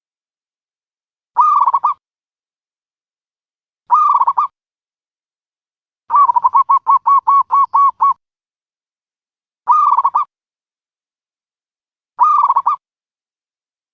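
Dove calling: short cooing calls repeated about every two and a half seconds, with a longer run of about a dozen quick notes in the middle, played as a lure call for trapping doves.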